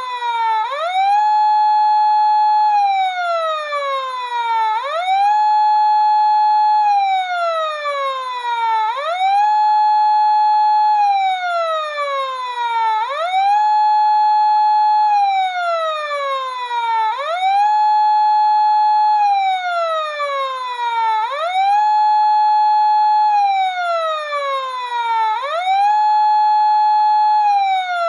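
Electronic emergency siren cycling over and over, about once every four seconds: a quick rise in pitch, a held high note, then a slow fall back down.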